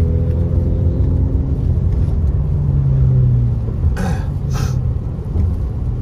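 Car engine and wet-road tyre noise heard from inside the cabin while driving, the engine note rising slightly around the middle. About four seconds in come two quick swishes.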